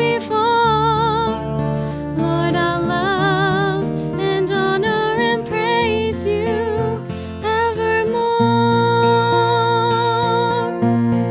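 A woman singing a slow song with vibrato, accompanied by a twelve-string acoustic guitar.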